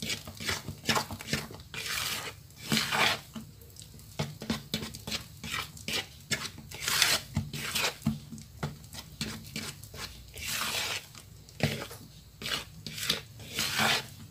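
Silicone spatula scraping and folding thick black glutinous rice sponge cake batter around a plastic mixing bowl in repeated, irregular strokes, working the melted margarine evenly into the batter.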